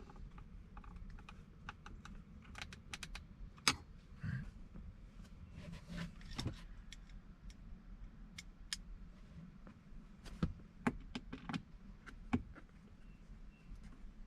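Irregular small clicks and taps of hand work on a car's center console, parts and tools being handled, with a few sharper knocks.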